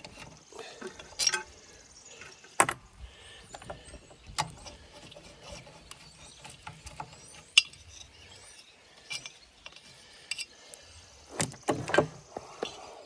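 Loosened cylinder-head bolts on a Wisconsin engine being spun out by hand and set down: scattered sharp metallic clinks and clicks, with a cluster of them near the end.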